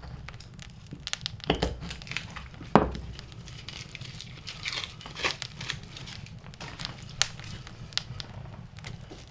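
Kindling fire crackling and popping in an open woodstove, with crinkling, rustling handling of dry bark near the firebox. A sharp knock about three seconds in is the loudest sound.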